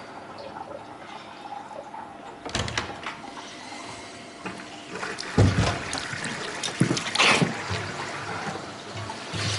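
A tap running steadily into a washbasin, with several louder splashes as water is scooped up in cupped hands and thrown onto a face.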